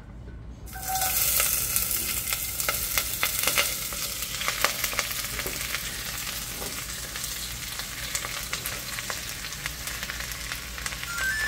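Chopped onion and spinach hitting hot oil in a stainless steel pot and sizzling, with many small pops, starting about a second in and running on steadily as more leaves are pushed in from a wooden cutting board.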